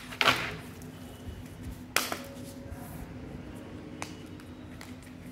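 Oracle and tarot cards being handled: a short papery rustle at the start, then two sharp taps about two seconds apart as cards are picked up and set down, with a few fainter ticks between.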